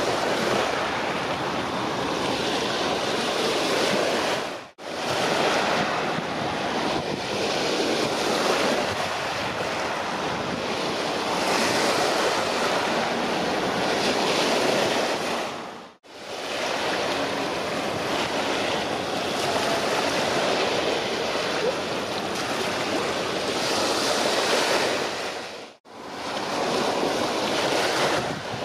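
Steady wash of sea waves mixed with wind buffeting the microphone. It briefly drops out three times.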